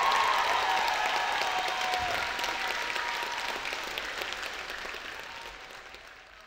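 Audience applauding, with a few cheering voices that die away in the first second or two; the applause fades out toward the end.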